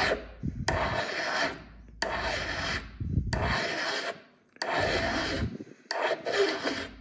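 Flat hand file drawn across the steel edge of an AK magazine catch: about five slow, even rasping strokes with short pauses between. The file is taking metal off the catch's front edge, hand-fitting it so magazines lock in.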